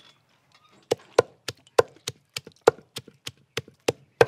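Wooden pestle pounding onions, tomatoes and peppers in a mortar: sharp, even knocks about three a second, starting about a second in.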